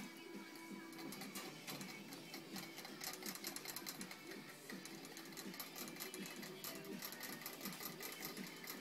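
Rapid, irregular clicking and rattling of the metal ball valve in a gravity-fed cage water bottle's spout as a rabbit licks at it to drink.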